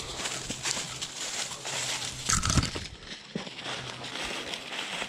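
Footsteps of a person and a leashed dog crunching and rustling through dry fallen leaves, with many small crackles, and one louder dull thump a little past halfway.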